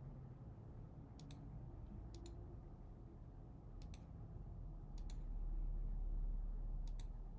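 Computer mouse clicking five times at uneven intervals, each click a quick double tick of press and release, as points are placed on a map. A faint low hum runs underneath and grows slightly louder near the end.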